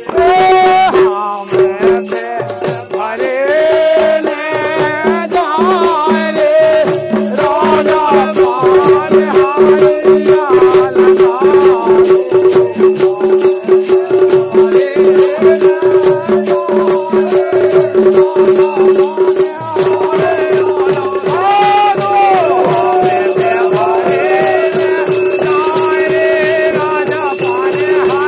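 Bundeli Rai folk music: fast drumming on two-headed barrel drums with a jingling, rattling accompaniment, a steady held tone underneath, and a man's singing voice rising and falling over it.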